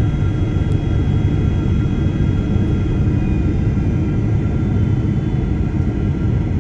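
Airliner cabin noise in flight, heard from inside the cabin: a steady low rushing noise with a few faint, steady high whines above it.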